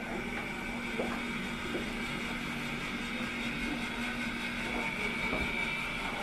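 A kitchen appliance's motor running steadily: a constant low hum with a high whine over it, loud enough to be called "a lot of noise". A few light knocks come in the first two seconds.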